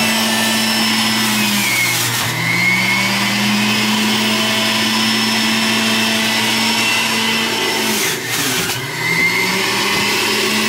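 Breville centrifugal juicer motor running steadily at high speed. Twice, about two seconds in and again about eight seconds in, its pitch sags and then climbs back as apple pieces are pushed down the chute and the motor is loaded.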